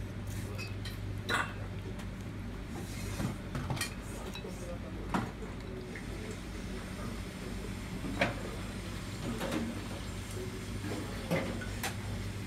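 Scattered sharp clinks and knocks of dishes and utensils, about six of them, the loudest a little past the middle, over a steady low hum.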